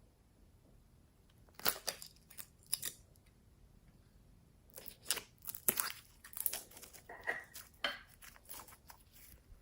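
Slime being mixed and squished by hand, giving crackly, sticky clicks and pops in two runs: a short one about two seconds in and a longer one from about five seconds to near the end.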